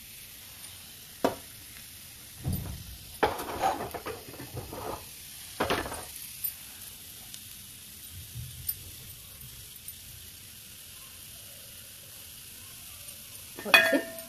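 Ginger slices sizzling in hot ghee in a steel ladle, a faint steady hiss. Several short metal clinks and knocks come in the first half, and a steel pot lid clatters loudly near the end.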